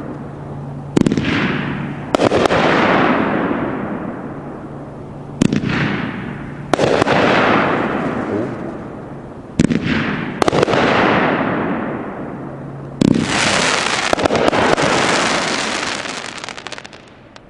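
A 14-shot, 350-gram consumer firework cake firing: about seven sharp bangs a second or more apart, each trailing off in crackle and hiss. It ends in a dense crackling burst lasting about four seconds, the cake's crackling finale, which stops just before the end.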